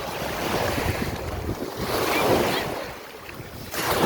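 Sea waves breaking and washing up the shore in two swells, one about a second in and one near the end, with wind buffeting the phone's microphone.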